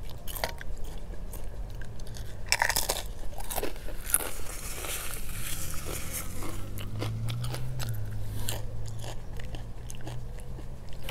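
Close-up crunching and chewing of sea salt potato chips: crisp crackling bites, loudest about two and a half seconds in. A steady low rumble of passing cars runs underneath and swells briefly in the second half.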